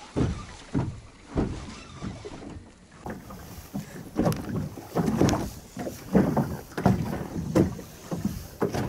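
Choppy water slapping against the hull of an inflatable boat in irregular low thumps, one or two a second, with wind on the microphone.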